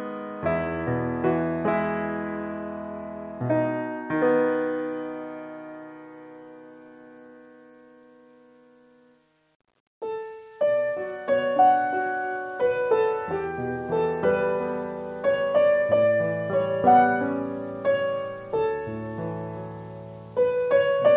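Background piano music. The notes ring and die away to silence about nine seconds in, then a second, livelier piano piece starts about a second later.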